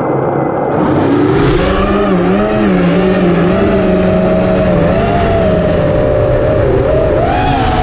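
Racing drone's electric motors and propellers whining, the pitch wavering up and down with throttle changes; the whine starts up and gets louder about a second in.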